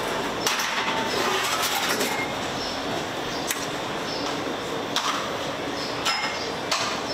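Light metallic clinks of a baking dish set onto a wire oven rack, a few knocks spread over several seconds, over a steady rushing background noise.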